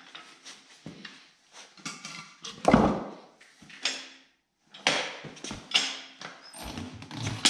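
Clunks and knocks of a motorcycle tire being shifted on a wooden board and the steel arm of a homemade bead breaker being set against its sidewall, at irregular intervals, with one heavy thump about two and a half seconds in.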